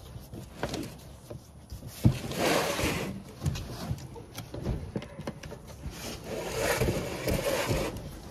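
A large cardboard shipping box being handled and turned over: a sharp knock about two seconds in, then scraping and rustling of cardboard, a few more knocks, and another stretch of scraping and rustling near the end.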